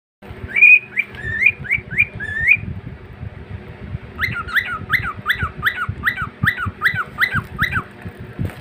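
Male cockatiel whistling: six short rising whistles in the first couple of seconds, then after a pause a fast run of repeated up-and-down whistled notes, about three a second. A faint steady low hum lies underneath.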